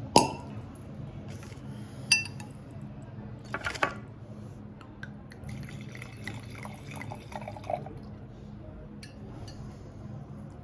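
A wine cork comes free of a lever corkscrew with a sharp pop just after the start, followed by glass clinks. White wine is then poured into a stemmed wine glass for a few seconds near the middle.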